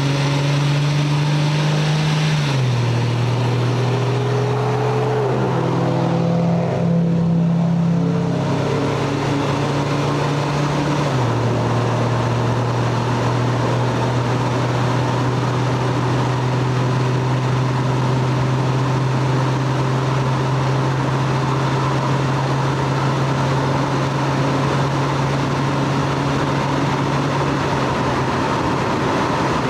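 Stock Lexus GS300's 2JZ inline-six engine and exhaust running at held engine speeds. The note drops suddenly about two and a half seconds in, rises briefly around five to six seconds, drops again about eleven seconds in, then holds steady.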